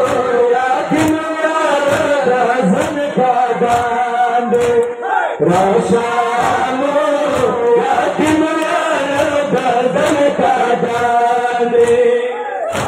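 Men's voices chanting a Pashto noha, a Shia mourning lament, with a regular beat of chest-striking matam under the singing. The chanting drops away near the end.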